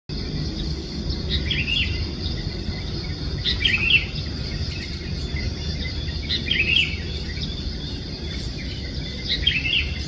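Sooty-headed bulbul calling: a short, quick warbling phrase repeated four times, about every two and a half to three seconds.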